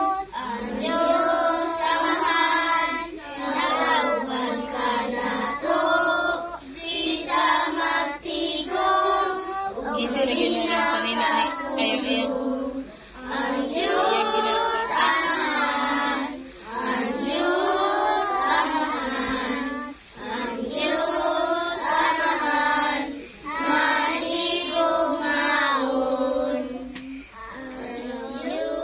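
A group of young children singing a Cebuano worship song together, in sung phrases of about two to three seconds with short breaths between them.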